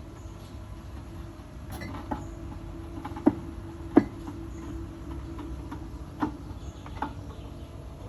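A handful of short, sharp knocks and clicks, about six, the loudest two about three and four seconds in, over a low steady hum.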